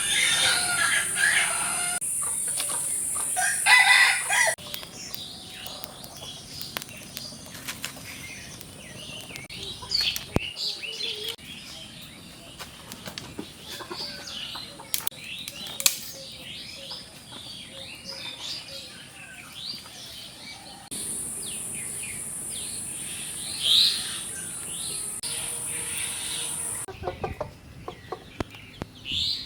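Domestic chickens clucking, with bursts of wing flapping.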